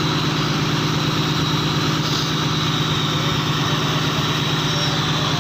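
Fishing boat's engine running steadily, a constant low hum with an even rumble.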